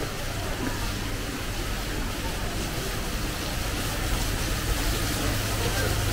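Heavy rain pouring down, a steady hiss that grows a little louder about four seconds in as it comes into the open, over a low rumble of road traffic.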